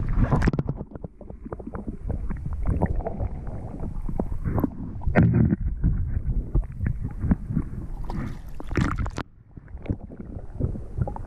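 A hooked sea trout splashing at the water's surface, with water sloshing and gurgling around a camera dipped in and out of the water. For long stretches the sound is muffled, as if from underwater, with louder splashes near the start, about five seconds in and near the end.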